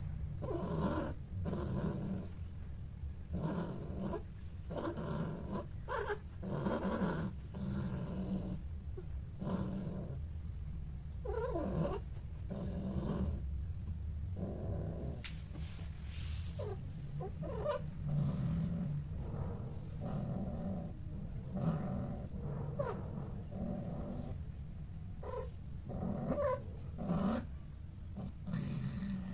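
Domestic cats growling during mating: a long run of low, repeated calls, about one a second, over a steady low rumble. A few calls waver up and down in pitch.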